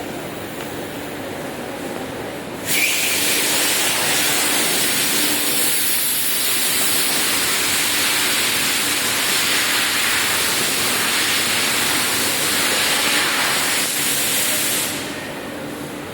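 A loud, steady hiss starts suddenly about three seconds in and cuts off about fifteen seconds in, over a quieter steady background noise.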